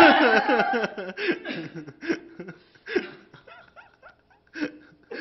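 A man's loud yell of pain as a wax strip is ripped off his chest, sliding down in pitch over the first second, followed by scattered bursts of laughter.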